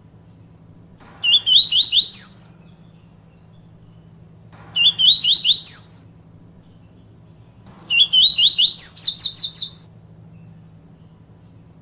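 Papa-capim, a Sporophila seedeater, singing its 'tui tui viviti' song: three short phrases of quick rising whistled notes a few seconds apart, the last one longer and ending in a fast run of higher sweeps.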